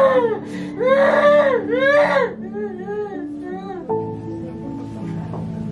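A woman crying aloud in long rising-and-falling wails: three loud ones in the first two and a half seconds, then weaker, shorter sobs that stop about four seconds in. Background music with sustained notes plays underneath.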